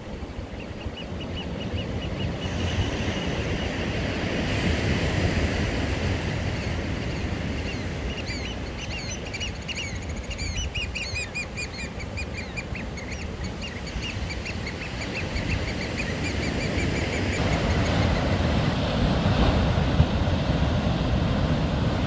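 Ocean surf crashing and washing over a rocky shore, swelling louder toward the end. A bird calls over it in quick series of short, repeated high notes, briefly about a second in and again for several seconds through the middle.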